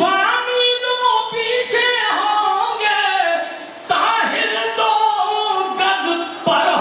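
A man singing a line of Urdu poetry unaccompanied into a microphone, in the sung tarannum style of mushaira recitation. He holds long, wavering notes and pauses for breath twice.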